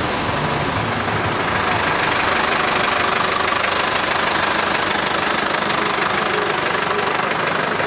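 Engines of passing parade vehicles: an old military jeep, then a Ford farm tractor's diesel engine running steadily close by as it tows a float.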